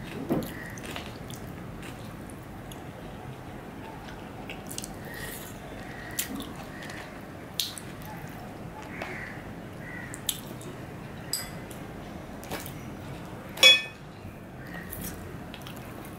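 Close-miked eating by hand: scattered sharp clicks and smacks of fingers picking food off a china plate, with chewing and lip sounds, and one louder click near the end.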